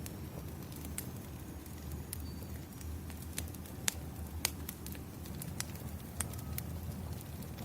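Wood fire crackling, with sharp irregular pops and snaps over a low steady rumble.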